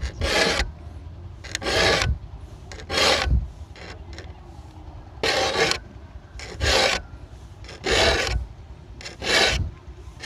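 A saw file rasping across the teeth of a hand saw, sharpening them: about seven short strokes, roughly one a second, with a longer pause near the middle. Each tooth gets two strokes.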